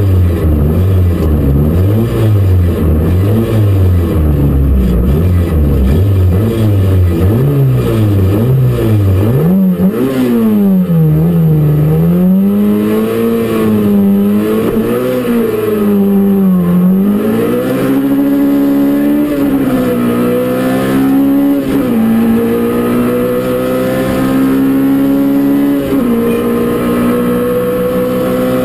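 Peugeot 205 Rallye Group A car's four-cylinder engine, heard from inside the cabin: blipped up and down about once a second while held on the start line, then revved harder in wider swings. Later it pulls away and accelerates, the pitch climbing steadily with two sudden drops at gear changes.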